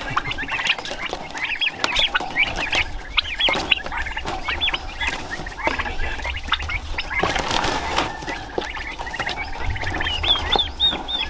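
Young turkey poults peeping over and over in short, high, rising chirps, with a brief rustle about seven seconds in as they are handled in a wire cage.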